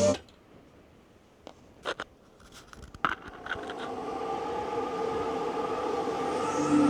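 Music from a portable Bluetooth speaker stops suddenly, leaving a few seconds of quiet broken by a handful of small clicks. A soft ambient music intro then fades in and grows steadily louder.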